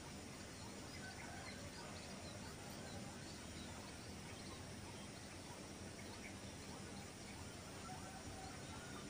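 Steady open-air background hiss with faint, scattered short bird chirps throughout.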